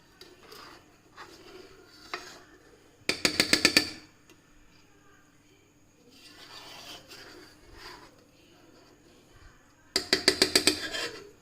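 Quick rhythmic tapping of metal on metal, a utensil struck rapidly against a cooking vessel: two runs of about eight ringing strikes in under a second each, several seconds apart, with fainter clatter between.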